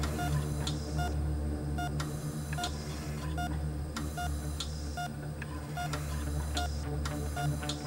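Operating-room patient monitor beeping steadily with each heartbeat, a little more than one short beep a second, over a low steady drone.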